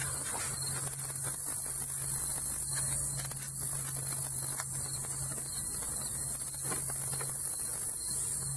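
Steady high-pitched insect chorus over a constant low hum, with a few faint soft knocks from handling.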